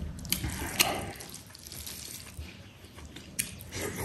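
Close-up eating sounds: fingers squeezing and mixing rice with curry on a steel plate, along with chewing and mouth sounds. A few sharp clicks stand out in the first second and another just before the end.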